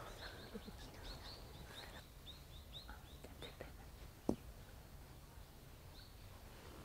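Faint birdsong: a bird repeating short, high chirps over low outdoor background noise. A single sharp click sounds about four seconds in.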